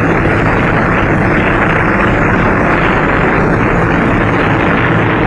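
Propeller aircraft engines droning steadily and loudly, with a dull, narrow-band quality typical of an old optical film soundtrack.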